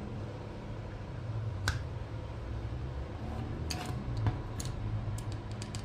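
Small metal clicks and taps as the parts of a diesel injection pump's governor flyweight assembly are fitted and handled: one click about two seconds in, then a run of quicker clicks near the end. A steady low hum runs underneath.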